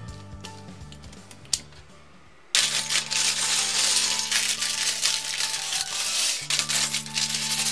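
Loose plastic building bricks clattering onto a wooden tabletop and being swept and spread out by hand. The clatter starts suddenly about two and a half seconds in, breaks off briefly near the end and resumes. Background music plays underneath.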